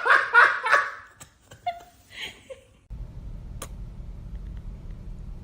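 A person laughing in quick bursts, then dying down. About three seconds in, a steady low rumble starts, with one sharp click.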